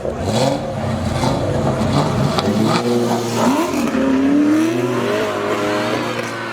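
Car engine revving hard, its pitch dropping and climbing about three seconds in, then rising again and holding high near the end.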